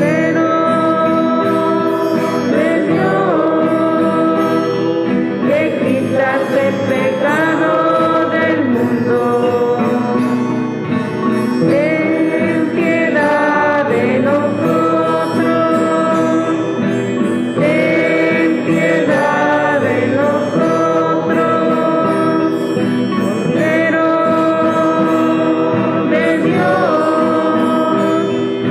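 Church music: singing with long held notes over a steady instrumental accompaniment.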